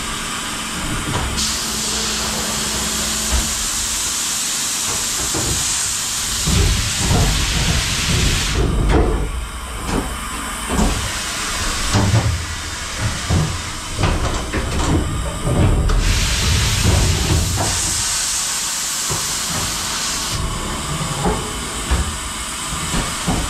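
Kia Centre H63 horizontal machining centre running its automatic twin-pallet exchange. A long hiss runs first, then a string of heavy clunks and knocks as the pallets shuttle and swap, then a second hiss and a few more knocks.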